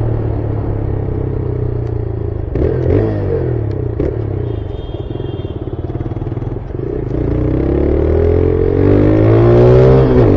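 Motorcycle engine running under way, easing off about three seconds in, then pulling up in pitch as it accelerates from about seven seconds, with a few clattering knocks.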